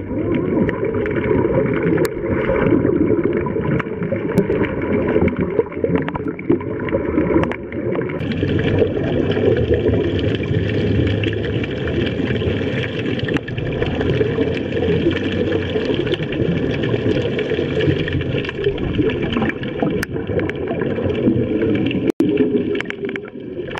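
Steady rushing and gurgling of water picked up by an underwater camera while divers swim over a reef, with a short dropout near the end.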